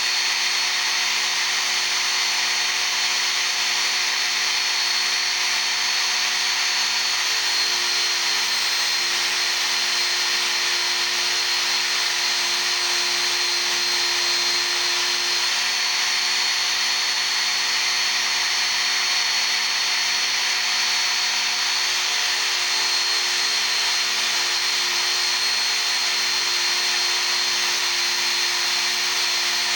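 Work Sharp Ken Onion Edition electric belt sharpener running steadily with a high whine, its abrasive belt grinding the steel of a chisel blade held against it.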